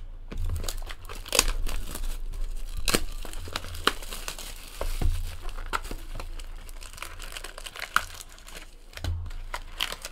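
Plastic shrink wrap crinkling and tearing as a sealed trading-card hobby box is unwrapped and opened, with irregular sharp crackles and a longer tearing rustle about four to five seconds in. The packs inside are handled.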